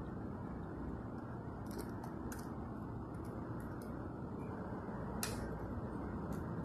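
A few small clicks and rattles from a First Gear die-cast Waste Management front-loader toy garbage truck being moved by hand on a stone floor, the loudest click about five seconds in, over a steady low hum.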